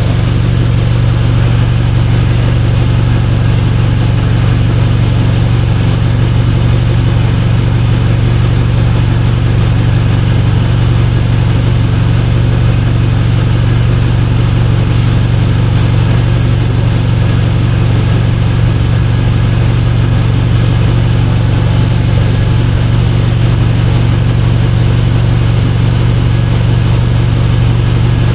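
Turbocharged Honda Civic R18 inline-four idling steadily, a loud even low hum that does not change.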